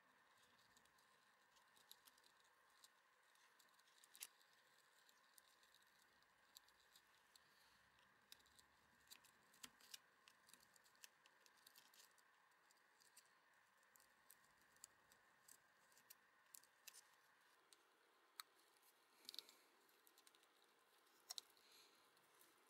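Near silence, broken by faint scattered clicks and ticks of thin enamelled copper magnet wire being fed by hand into the slots of an electric motor's stator, as a new starting winding is wound turn by turn. A faint steady hum stops a few seconds before the end.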